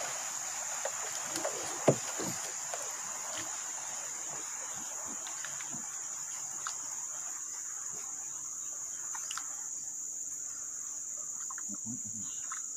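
Insects in the rainforest along the riverbank, giving a steady high-pitched drone over a soft wash of background noise. A brief knock comes about two seconds in.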